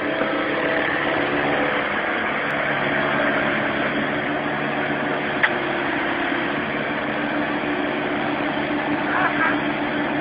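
Mini excavator's diesel engine running steadily with an even hum. A single sharp click about halfway through.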